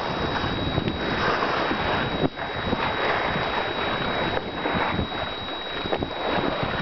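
Wind buffeting the microphone aboard a sailing yacht under sail, with water rushing and splashing along the hull. It is a steady, gusty noise with no pauses.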